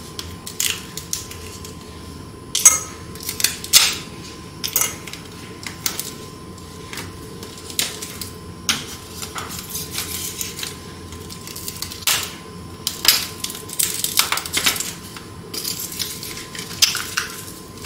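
Ice cubes dropped one after another into a mixer-grinder jar: a long run of irregular sharp clinks and knocks.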